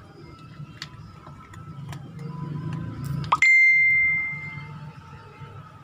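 Cat crunching dry kibble from a plastic bowl, with small scattered clicks. About three and a half seconds in, a short rising chirp runs into a loud, clear ringing ding that fades over about a second.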